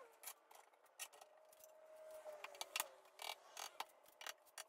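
Scattered light clicks and knocks, about ten of them, of plywood cabinet panels being handled and shifted against the bar clamps holding them on a workbench.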